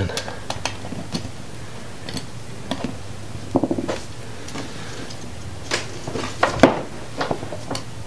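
Scattered light clicks and rustles of wires and crimped terminals being handled and worked into a plastic relay socket, with a few slightly sharper clicks about midway and near the end.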